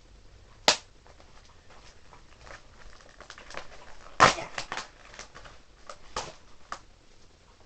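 Cardboard and plastic toy packaging being opened and handled: a scatter of crinkles and small clicks, with two sharp snaps, one under a second in and one about four seconds in.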